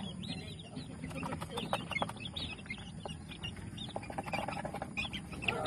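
Young gamefowl chicks peeping: many short, high chirps that rise and fall, with scattered short clicks among them.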